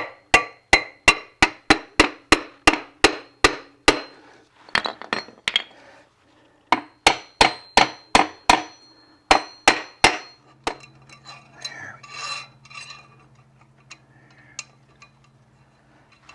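Hammer striking a piece of wood held against a Solectra AC24 electric motor's rear end plate, tapping the plate into place: quick even blows about three a second, then a short pause and further runs of blows that stop about ten seconds in. Faint clinks and a low steady hum follow.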